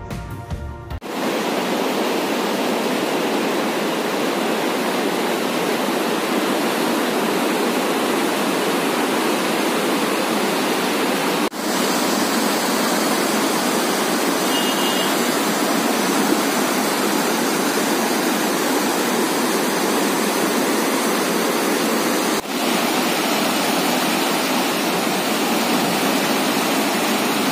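A steady rushing noise that begins as the background music cuts off about a second in, broken by two brief dips about 11 and 22 seconds in.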